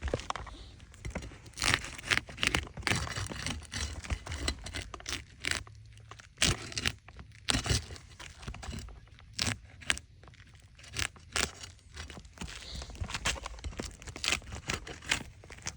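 Asphalt shingles being pried up and unsealed with a roof snake: scraping and tearing as the sealant strip pulls apart, with many sharp clicks and knocks as the tool works the nails out. The seal tears away with heavy mat transfer, a sign the shingles will not seal back down properly.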